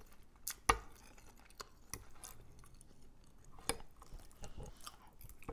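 Metal forks clinking and scraping against a glass baking dish: scattered sharp clicks, the loudest under a second in, with soft chewing between them.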